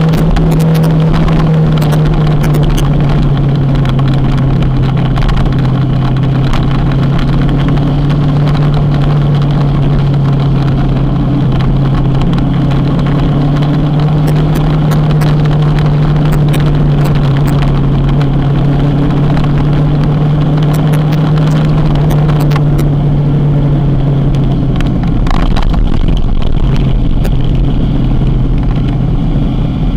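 Kawasaki motorcycle engine running at a steady pace while riding, its pitch shifting slightly lower about three-quarters of the way through, over a steady rush of road noise.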